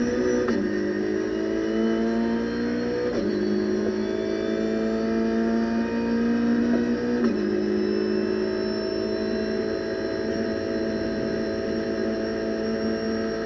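Renault Clio Cup race car's four-cylinder engine at full throttle, heard from inside the cockpit, accelerating up through the gears. The pitch climbs steadily and drops sharply with three quick upshifts: about half a second in, about three seconds in, and a little past seven seconds. It then climbs slowly in fifth gear.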